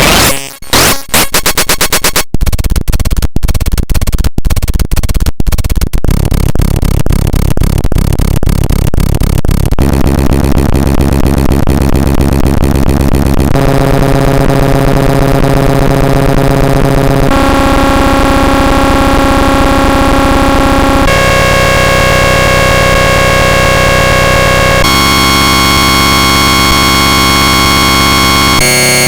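USA Emergency Alert System alarm digitally sped up to extreme rates, no longer heard as a two-tone alarm but as harsh electronic noise. It starts as a rapid stutter of clicks that grows denser, then becomes a dense buzz of steady tones that jumps to a new chord every three to four seconds.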